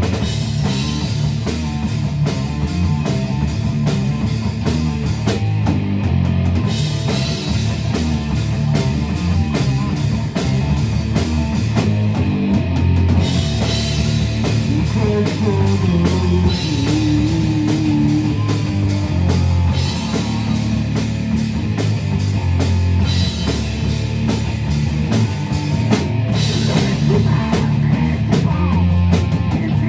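Live rock band playing a very heavy, angry song: electric guitars, bass guitar and a drum kit, with a singer's vocal through the microphone.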